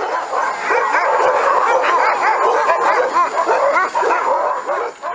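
Many sled dogs in a kennel yard yelping and howling together, dozens of high voices rising and falling over one another in a continuous chorus.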